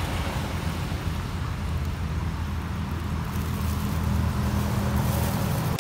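Steady roadside traffic noise: a continuous low engine rumble under an even wash of road noise.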